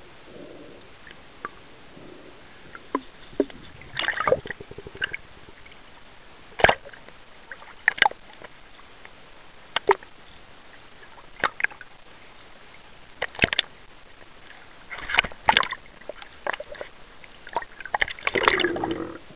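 Sea water sloshing and splashing against a snorkeller's camera as it moves in and out of the water at the surface: irregular sharp splashes and gurgles over a low steady hiss, busiest near the end.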